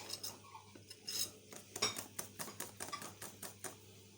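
A kitchen utensil clicking and scraping against a mixing bowl as thick cake batter is stirred, in irregular light taps a few times a second.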